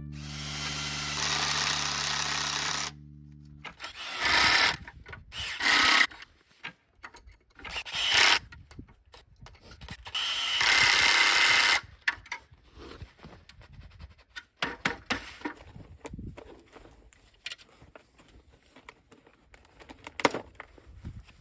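Power drill running, first steadily for a few seconds and then in four short bursts, as when driving screws or drilling holes in wood. Quieter clicks and knocks of tools and parts being handled follow.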